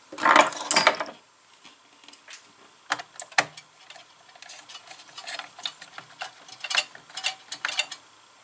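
Hand-handling sounds of wiring work in a control cabinet: a louder rustle of wires in the first second, then scattered small clicks and ticks as a wire is fitted into a terminal on the control board.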